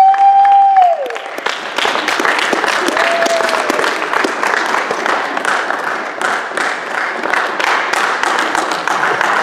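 Theatre audience applauding steadily for the cast's bows. A loud, long held cheer rings out over the first second and drops away, and a shorter one comes about three seconds in.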